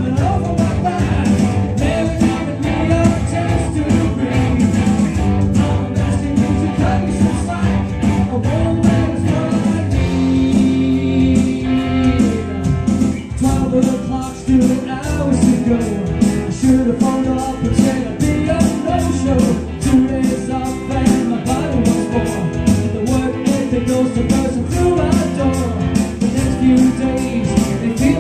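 Live rock band playing electric guitar, bass guitar and drums, with a steady beat throughout.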